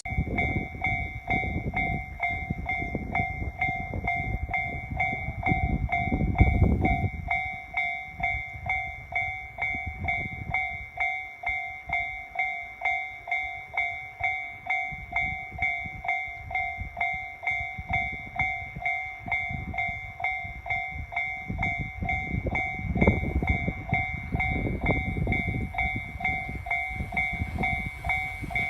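Japanese railway level-crossing warning bell dinging steadily, about two dings a second. A train rumbles across the crossing for the first several seconds, and a second, shorter rumble comes about three-quarters of the way through.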